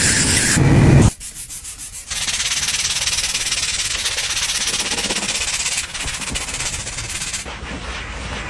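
Fast, rhythmic rasping friction against a surface, a sanding-type rub pulsing many times a second, easing off in the last couple of seconds, after a louder full-range noise in the first second.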